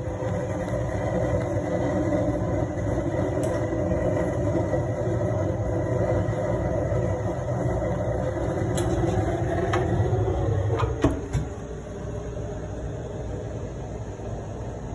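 Homemade waste oil burner running, its flame burning in the burner pot with a 240 V boiler fan blowing air in: a steady low rumble with a steady hum over it. A few sharp knocks about eleven seconds in, after which the rumble is quieter.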